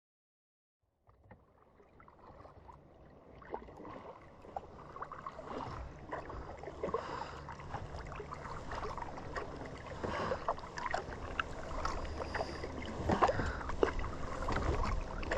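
Kayak paddle strokes dipping and splashing in lake water. The sound fades in from silence about a second in and grows gradually louder.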